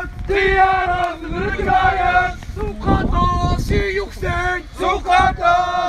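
Crowd of men chanting protest slogans in unison, in repeated sung phrases with held notes.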